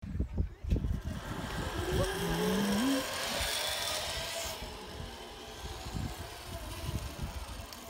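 Zip line trolley running along its steel cable, a whir that rises and then slowly falls in pitch as the rider passes, over irregular low thumps.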